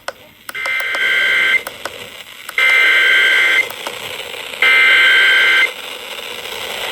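Emergency Alert System SAME header received over the radio: three bursts of data tones, each about a second long with a second's pause between them, over background hiss. The header opens a severe thunderstorm warning.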